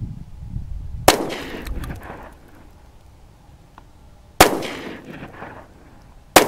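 Three 9mm pistol shots: one about a second in, one about four and a half seconds in, and one near the end. Each is a sharp crack followed by a trailing echo.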